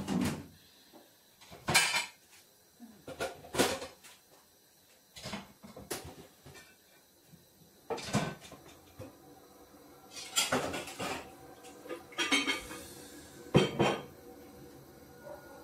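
Dishes and cutlery clattering as plates are handled and stacked during kitchen clean-up: a string of separate clinks and knocks at uneven intervals, with no steady sound between them.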